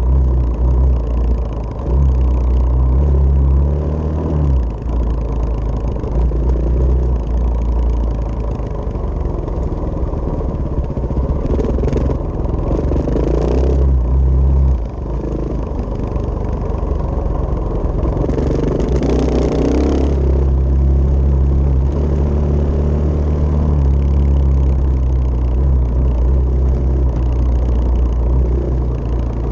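KTM dirt bike engine running under load on a gravel trail, the revs rising and falling as the throttle opens and closes. There are a few brief bursts of rushing noise along the way.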